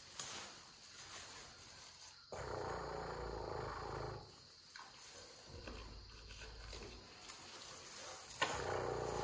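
A woman imitating an elephant's low rumble to calm a baby elephant, twice: one rumble of almost two seconds, then a second starting near the end.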